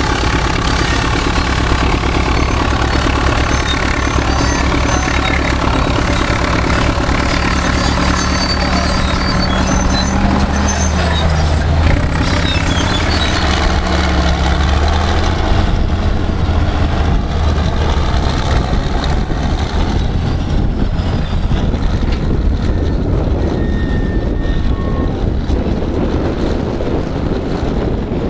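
Heavy Caterpillar earthmoving diesels, a 630B scraper and D7E pusher dozer, running steadily under load. The engine note sags about halfway through and recovers. In the later part the engines are partly buried under rough wind noise on the microphone.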